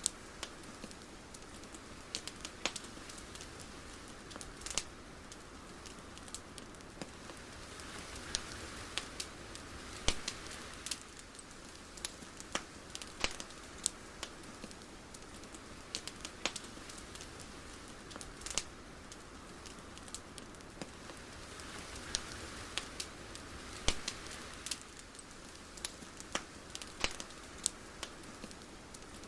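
Irregular sharp crackles and clicks over a soft steady hiss that swells gently twice, with no music.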